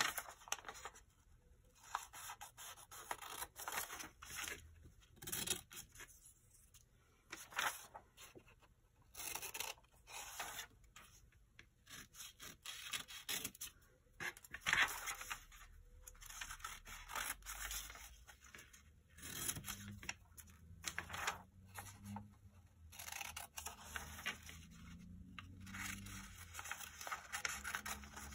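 A dictionary page being handled, unfolded and folded by hand, rustling and creasing in irregular soft scrapes and crackles, with scissors snipping through the paper to trim the corners.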